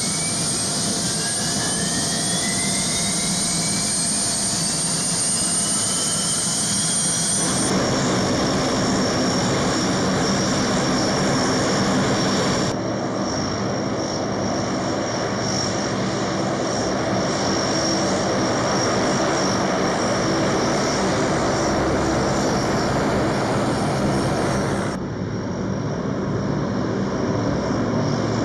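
Lockheed EC-130H Compass Call's Allison T56 turboprop engines and propellers running. Over the first several seconds a turbine whine rises steadily in pitch, and the sound changes abruptly three times, about eight, thirteen and twenty-five seconds in.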